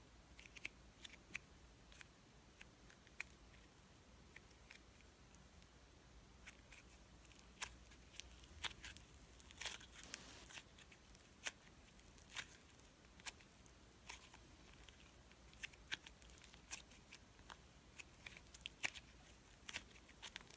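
Slime being stretched, squeezed and folded by hand: quiet, scattered sticky clicks and small crackles. They grow more frequent after about six seconds.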